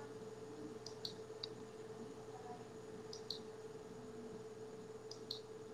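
Faint computer mouse clicks in three quick groups about two seconds apart as a slide presentation is advanced, over a faint steady hum.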